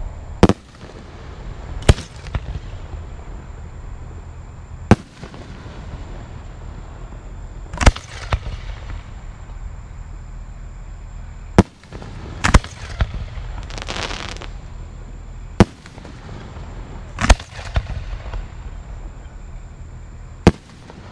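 Aerial firework shells bursting, about nine sharp booms spaced a second to three seconds apart, with a short hissing crackle a little past the middle.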